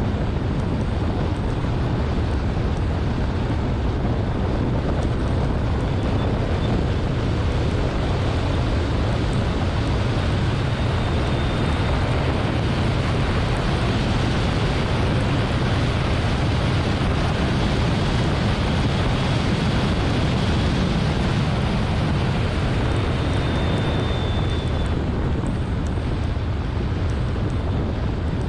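A Porsche driven hard on a race track, heard from a low-mounted camera: a steady mix of wind buffeting on the microphone, tyre and road noise and the engine underneath, with the car reaching about 100 mph on the straight.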